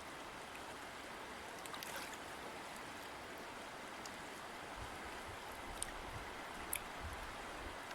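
River water flowing and rushing steadily, with a few sharp splashes or droplet ticks about two, six and seven seconds in.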